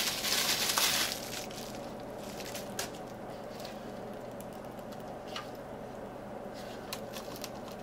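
Plastic bubble wrap crinkling as it is pulled off a small device, dying away about a second in. After that, only a few faint clicks and taps of handling.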